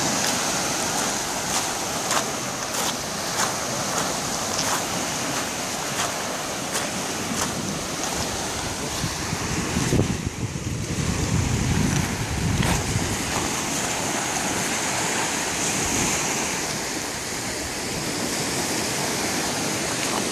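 Small waves washing onto a pebble and shell beach, a steady hiss of surf. For the first several seconds crunching footsteps on the stones come about every two-thirds of a second, and wind rumbles on the microphone a little before the middle.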